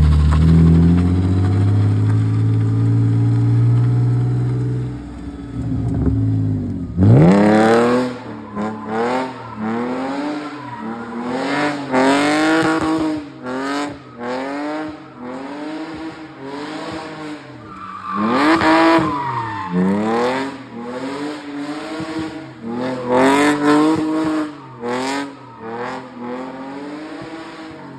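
A BMW E46 325i's 2.5-litre straight-six engine runs steadily at first. From about seven seconds in it revs up and down over and over in quick pulses as the car drifts on its welded rear differential, with the rear tyres spinning and squealing.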